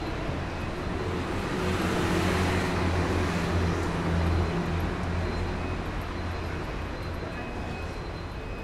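Street traffic: a motor vehicle drives past with a low engine hum and tyre noise, swelling over the first few seconds and then fading.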